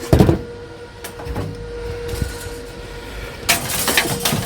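Discarded electronics being handled as scrap: a loud knock at the start, a few lighter knocks, and a rattling scrape near the end, over a steady faint hum.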